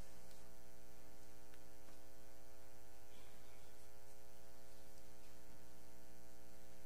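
Steady electrical mains hum: a stack of unchanging tones that holds level throughout.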